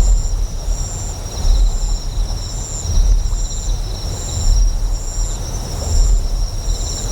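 Deep generator hum that swells in a slow pulse about every one and a half seconds, with high insect chirps repeating a little faster than once a second over a steady high trilling.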